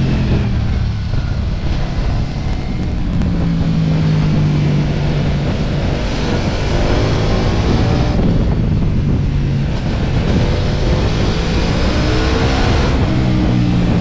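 Ducati Multistrada V4 S's V4 engine under way through a run of bends, its pitch dropping as the throttle is rolled off, holding steady, then rising again as the bike accelerates. Heavy wind rush and road noise on the bike-mounted microphone.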